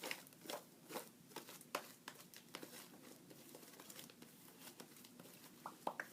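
Fluffy white slime (PVA glue and shaving foam) being kneaded by hand: faint, irregular sticky crackles and squishes, thickest in the first couple of seconds.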